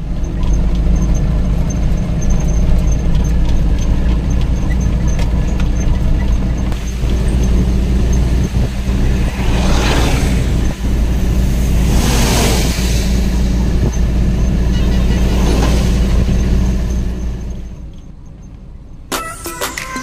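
Loaded goods truck's diesel engine and road noise droning steadily inside the cab while driving on the highway. A couple of passing vehicles swell and fade past partway through. The drone fades out near the end as music begins.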